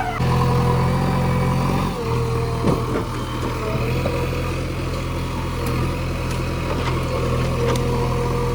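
JCB backhoe loader's diesel engine running steadily, with a steady higher tone above the engine note that wavers slightly in pitch; the engine note dips briefly about two seconds in.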